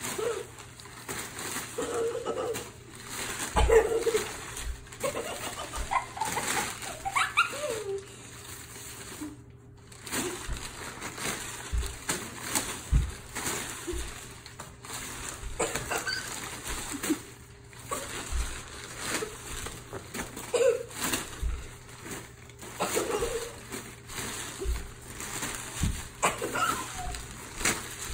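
Brown paper bag crinkling and rustling in short crackly bursts as it is swung through the air and dragged over carpet, with dull thumps now and then. Brief vocal calls and glides come in between.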